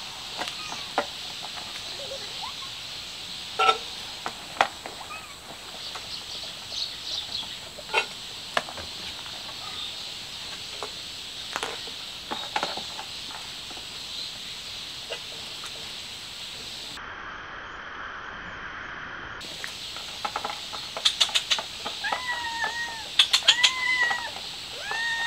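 Domestic cats meowing, a quick run of short, arched meows near the end, over scattered clicks and taps while several cats feed from steel bowls.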